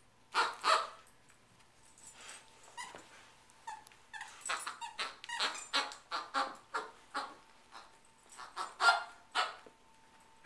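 Plush squeaky duck toy squeaking in short sharp bursts as a Labrador chews it, quickening to about three squeaks a second in the middle, with the loudest near the end.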